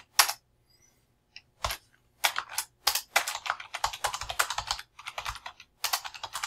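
Typing on a computer keyboard: a few keystrokes, a pause of about two seconds, then a quick, steady run of keystrokes as a line of text is typed.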